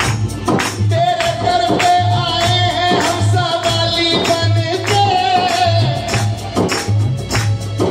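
A Hindi devotional bhajan performed live: a man singing into a microphone, holding a long note, over keyboard accompaniment and an even, steady drum beat with sharp percussion strokes.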